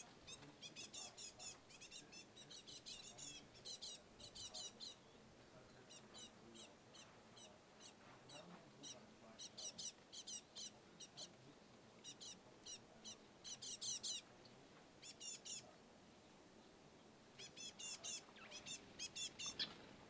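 Small songbirds chirping in rapid, high-pitched twittering runs, coming in several bouts separated by short pauses.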